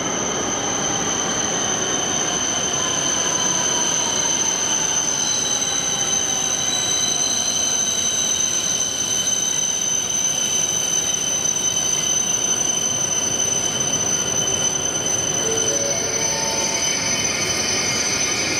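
Shinkansen train running at a station: a steady rumble of wheel and running noise under several steady high-pitched whines, with a lower tone sliding slowly down in the first half.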